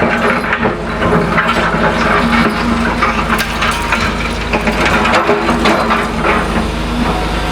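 Caterpillar excavator's diesel engine running steadily, under a continual irregular crackling and crunching of demolition rubble being broken and moved.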